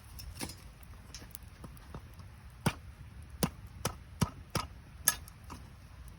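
Wood campfire crackling, with a run of sharp pops from the burning firewood, about seven of them in the second half, over a low steady flame noise. The firewood is damp from the previous day's rain.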